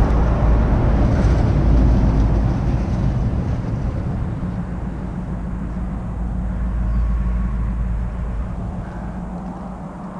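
Low engine rumble with a steady hum from a passing motor, loudest in the first seconds and slowly fading away.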